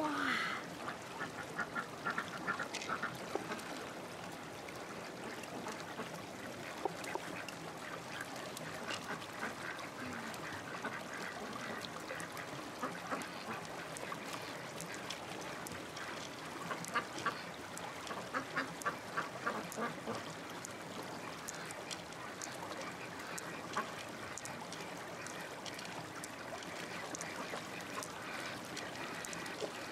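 Ducks quacking in several runs of quick, repeated calls.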